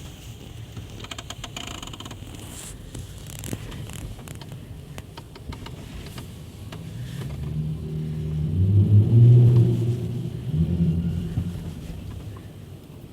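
A car engine's low drone grows louder through the middle, peaks, then fades again toward the end, over a faint background of traffic.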